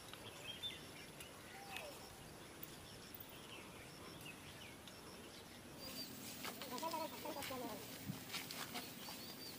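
Faint rural outdoor ambience with scattered small bird chirps; about six seconds in the background changes and faint voices come in.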